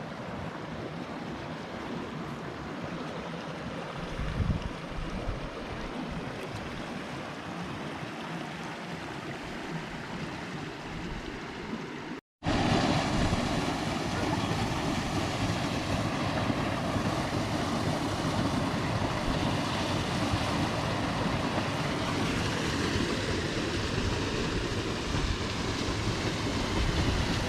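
A steady rushing noise with no distinct events. It cuts out for a moment about twelve seconds in and comes back louder.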